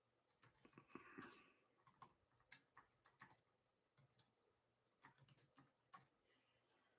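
Near silence, with faint scattered clicks and light rustles.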